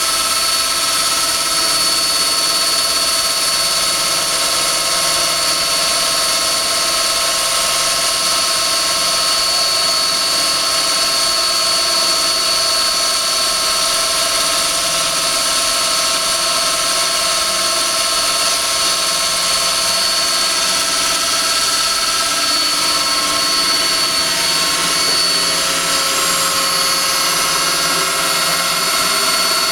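Golz 460 V high-frequency, water-cooled electric core drill running steadily as it bores into a concrete slab: a loud, even high-pitched whine over a rushing hiss, with no change in speed.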